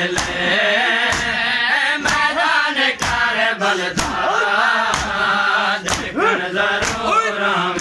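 Men chanting a noha (Shia lament for Imam Hussain) in group unison, with a lead voice and the crowd joining. Sharp hand slaps of matam (chest-beating) keep the beat about once a second.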